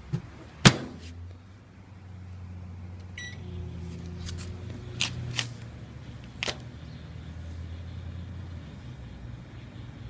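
Microwave oven door slammed shut, a short keypad beep about three seconds in, then the microwave running with a steady low hum. A few sharp snaps come through the middle as the iPhone charger inside begins to arc and burn.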